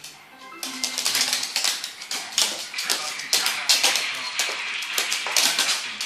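Boston terrier's claws clicking and tapping on a wooden floor in rapid, irregular bursts as the dog hops and paws around.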